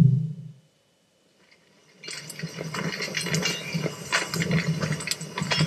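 The tail of a low logo whoosh fades out, then after about a second and a half of silence a quiet crackling, rustling ambience of many small irregular clicks sets in.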